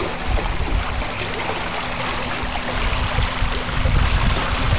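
Water rushing and trickling along the hull of a Corsair F-24 trimaran sailing in light air, a steady hiss, with wind buffeting the microphone in uneven low rumbles.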